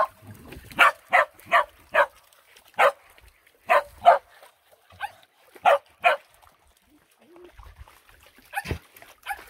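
Dog barking in a run of short, sharp barks, about a dozen in the first six seconds, then after a pause one more sharp sound near the end.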